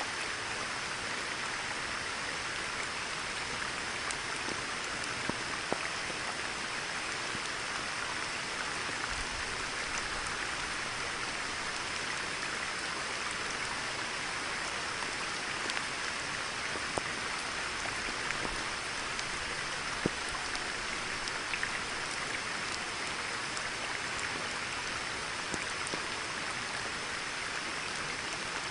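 Steady rain falling on a pond, with a few louder single drops standing out now and then.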